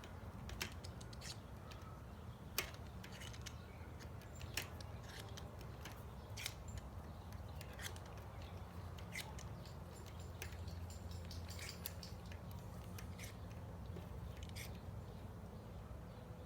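Faint, irregular metallic clicks and ticks of a chain breaker tool being turned to press a rivet pin out of a BMX chain link, over a low steady hum.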